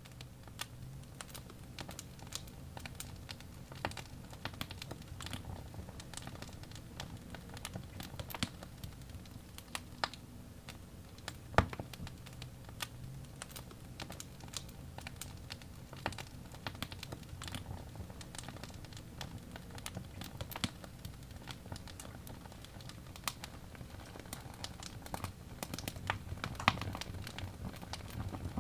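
Wood fire crackling, with irregular sharp pops and snaps over a low steady rumble of the flames; one loud pop about twelve seconds in.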